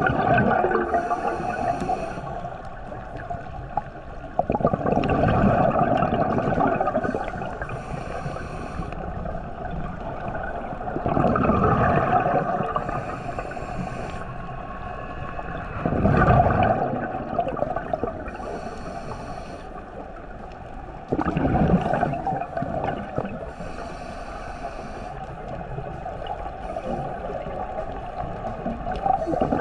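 Scuba diver breathing through a regulator underwater: a gurgling rush of exhaled bubbles about every five seconds, each followed by the regulator's hissing inhale.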